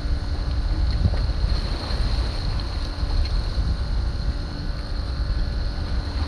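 Wind buffeting the microphone in a heavy low rumble, over sea water washing around a small boat's stern. A faint steady high whine runs underneath.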